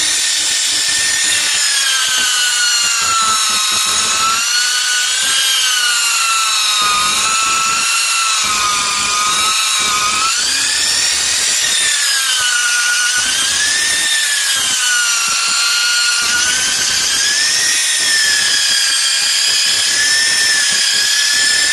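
Electric polisher running with its pad pressed on wet car windscreen glass to polish out scratches: a steady motor whine whose pitch wavers slowly up and down.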